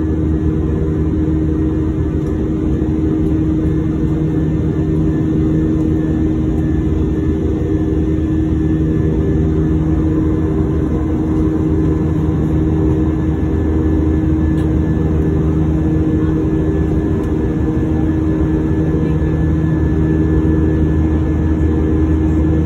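Airliner's turbofan engines running steadily, heard inside the passenger cabin as a loud, even low drone with a steady hum in it.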